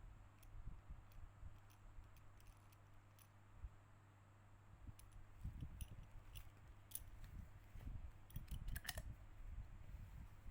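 Faint scattered small clicks and taps over a low steady hum, sparse at first and busier from about halfway through.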